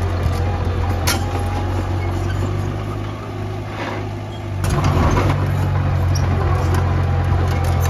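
Vehicle engine running with a steady low drone. It eases off about three seconds in and picks back up strongly around four and a half seconds, with a few sharp clicks over it.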